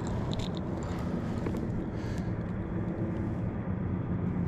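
Steady low drone of a distant engine.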